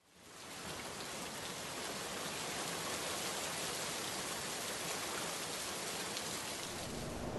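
Steady rain falling, fading in over the first second.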